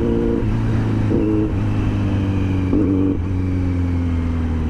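Kawasaki Z900's inline-four engine sputtering in three brief surges as the bike coasts and slows: the engine is misfiring and cutting out as the fuel tank runs dry, even with the throttle held.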